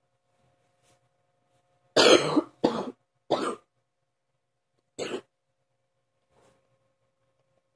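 A person's deep cough: three coughs in quick succession about two seconds in, then a single cough a couple of seconds later.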